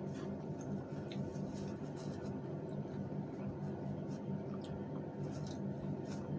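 Eating sounds: soft chewing and small mouth clicks scattered through, over a steady low hum.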